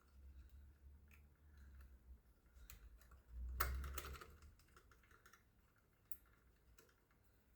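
Faint, scattered clicks and taps of small tachograph rev-counter parts being handled and fitted, with a louder clatter about three and a half seconds in and a single sharp tick near the end.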